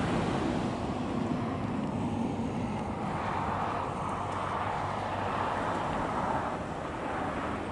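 Wind buffeting the microphone over the rumble of a Boeing 737-300's CFM56 jet engines on final approach; the engine noise builds about three seconds in and eases near the end.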